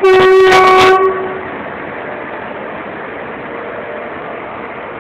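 Horn of a WAP4 electric locomotive sounding one very loud blast of about a second, followed by the steady rumble of the train running past at close range.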